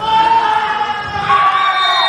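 Young volleyball players yelling in celebration of a won point, with several long, high-pitched shouts overlapping and a second loud shout about a second and a half in.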